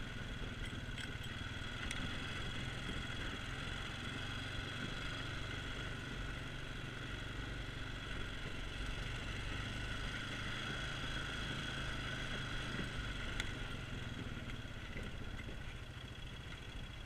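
ATV engine running steadily as the machine rides along a rough dirt trail, easing off a little near the end.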